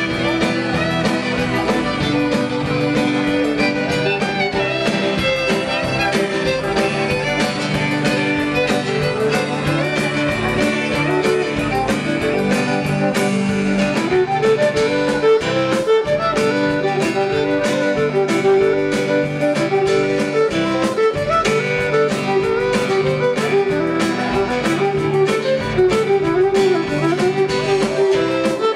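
Live Cajun band music: a fiddle carries the tune over guitar and a steady drum beat.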